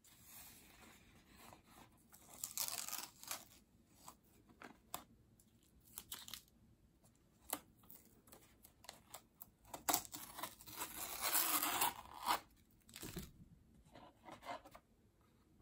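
Masking tape being peeled off watercolor paper: a faint sticky tearing rasp in a few short stretches, the longest about ten seconds in, with light clicks from the paper being handled.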